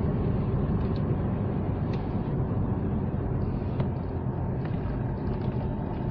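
Car driving along, a steady rumble of engine and road noise.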